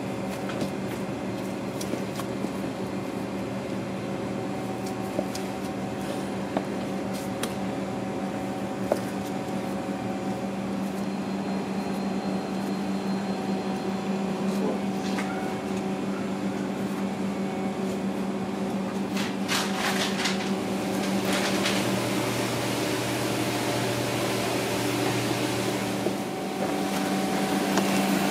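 Steady machine hum of running kitchen equipment, with scattered faint clicks and taps as a knife cuts beef tenderloin on a plastic cutting board. A cluster of sharper clicks comes about twenty seconds in.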